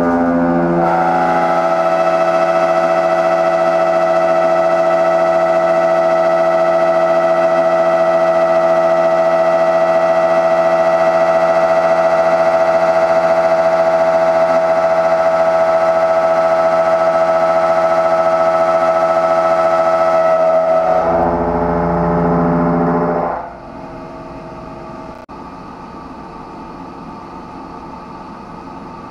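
Tungaloy DoRec11 indexable milling cutter with LQMU-MJ inserts, on a long overhang, cutting in a CNC machining centre and giving off a loud, steady, high-pitched squeal: the chatter that comes with the long overhang. About twenty seconds in, the pitch drops for a couple of seconds, then the cut ends and only a quieter steady machine noise remains.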